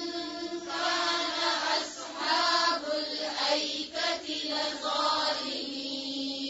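A voice reciting Quranic Arabic in a slow, melodic tajweed chant, drawing out long held notes.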